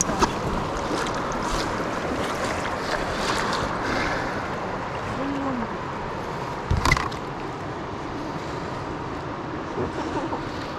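Kayak paddles splashing and dripping as they stroke through river water, over a steady wash of moving water. A single sharp knock about seven seconds in is the loudest sound.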